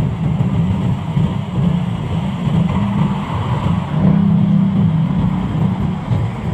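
Motor scooter engines running in street traffic, a steady low drone that swells briefly about four seconds in.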